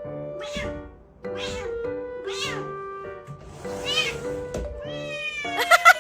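A cat meowing repeatedly, each meow rising and falling in pitch, with several louder meows near the end, over background music.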